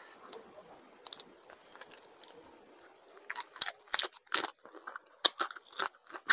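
Close-miked mouth sounds of eating a curried prawn: a few faint clicks while the prawn is handled, then, from about three seconds in, a quick run of wet clicks, smacks and crunches as it is bitten and chewed.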